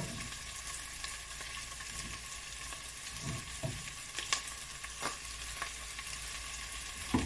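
Carrots and green beans sizzling as they sauté in a granite-coated pot over a gas burner, a steady hiss with a few light knocks and ticks scattered through it.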